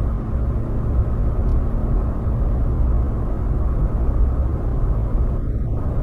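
Steady low rumble of a car driving at highway speed: tyre, road and engine noise heard from inside the cabin.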